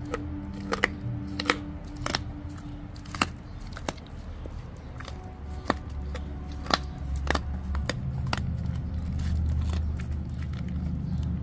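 Large old shepherd dog chewing a raw beaver tail: sharp, irregular crunches and clicks as its teeth bite into the tough scaly skin, about ten of them spread a few tenths of a second to a second apart.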